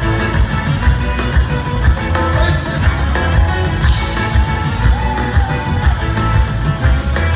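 Live Ethiopian pop band playing loudly through a concert hall's sound system, drum kit keeping a steady beat with cymbals, bass, electric guitar and keyboard, with a voice singing over it.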